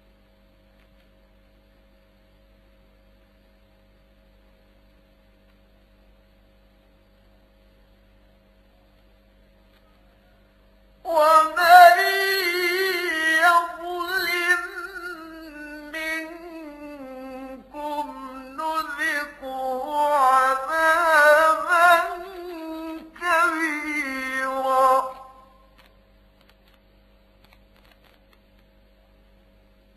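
A steady low electrical hum. About 11 s in, a man's voice chants one long melodic phrase of Quran recitation, held high and ornamented, for about 14 seconds, stopping near 25 s. The hum continues alone after it.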